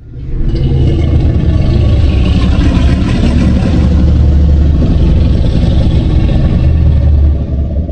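A Godzilla (2014) monster sound effect: a loud, deep, rough rumble that starts suddenly and holds for about seven seconds before fading near the end.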